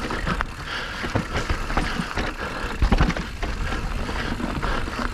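Mountain bike riding a rough dirt trail: wind rushing on the microphone over tyre noise, with frequent small knocks and rattles from the bike and a heavier knock about three seconds in.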